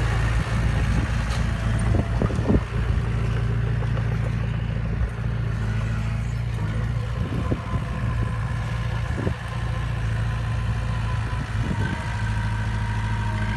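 Diesel engine of a small crawler bulldozer running steadily, with a few brief knocks scattered through.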